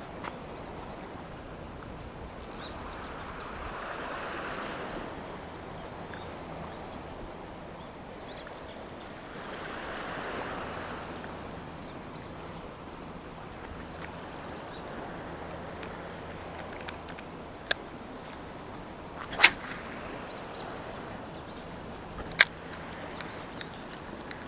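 Outdoor shoreline ambience: insects chirring steadily in a high, thin band, with two soft swells of wash like small waves coming in. A few sharp clicks sound in the second half, the last two the loudest.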